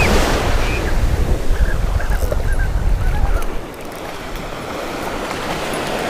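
Surf washing on the shore with wind buffeting the microphone; the low wind rumble drops away about three and a half seconds in, leaving the even wash of the small waves.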